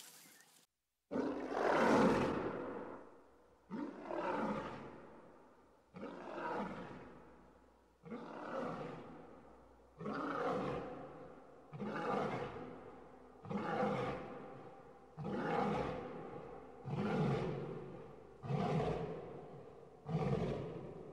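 Male lion roaring in a bout: one long roar about a second in, followed by about ten shorter roars spaced roughly two seconds apart, each starting sharply and fading away.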